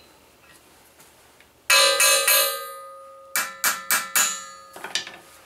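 Hammer blows on the steel bench-grinder stand, driving a concrete anchor bolt at its base, with the hollow square steel post ringing like a bell after each blow. One hard blow comes about a third of the way in and rings on for several seconds, then a quick run of four blows follows, and a lighter tap comes near the end.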